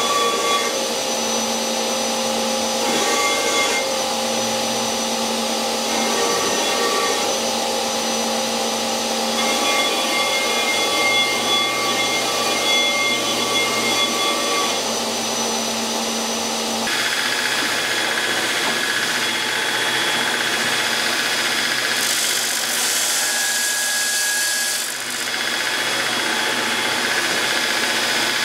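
Belt grinder running with a steel sword blade ground against its contact wheel, the motor hum and grinding whine dropping in and out every few seconds as the blade is pressed on and lifted. About two-thirds of the way in it changes abruptly to a belt-grinding head on a surface grinder running, a steadier grinding hiss that brightens for a few seconds near the end.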